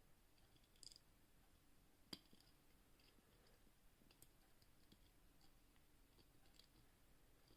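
Near silence with a few faint, sparse clicks of homemade lever-lock picks working the levers inside a 6-lever padlock.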